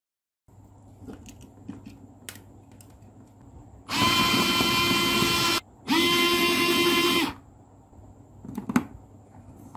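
Small cordless screwdriver driving the mounting screws of a key card power switch, in two steady runs of about a second and a half each, the pitch rising slightly as the second run starts. Light handling clicks come before the runs, and a sharper click follows near the end.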